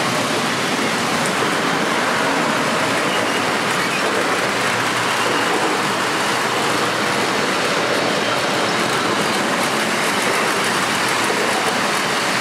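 Model IRT Redbird subway train running along the layout's track close by, giving a steady rolling noise that holds at an even level throughout.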